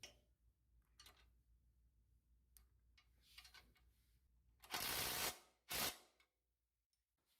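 A hand wrench working on the lower ball joint nut of a car's front suspension: scattered light metal clicks, then two short, loud rasping bursts about five seconds in.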